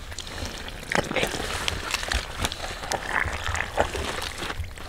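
Hands digging and squelching in wet mud, with irregular wet clicks and splats.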